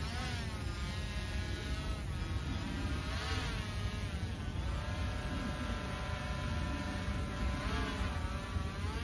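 Small quadcopter drone's propellers whining in the air, the pitch swinging up and down three times as it manoeuvres: near the start, around the middle and near the end. A steady low rumble lies beneath.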